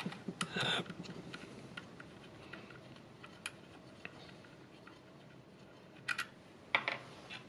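Small metallic clicks and taps as a jigsaw's blade-guide roller bearing and its retaining screw are worked loose by hand. There is a short cluster of clicks under a second in, a couple of single ticks in the middle, and two brief clusters near the end.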